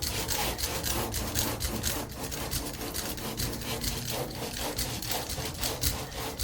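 Coarse 40-grit sandpaper worked by hand back and forth over body filler that is still slightly wet on the surface, a steady run of short scratchy strokes.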